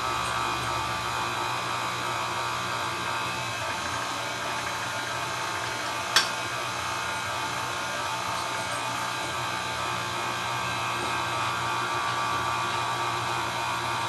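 Pasta machine's electric motor running steadily as a sheet of noodle dough is fed through the rollers, with one sharp click about six seconds in.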